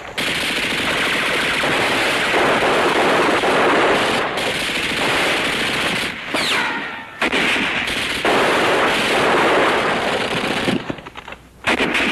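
Machine-gun fire in long continuous bursts, with a short break about six seconds in that carries a brief falling whine, then thinning out toward the end.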